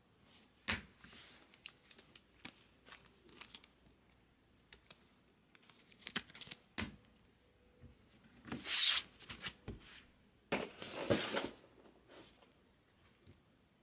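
Hands handling baseball cards and a plastic top loader: scattered clicks and rustles, then two longer crinkling, tearing noises, one at about eight and a half seconds in and one at about ten and a half seconds in.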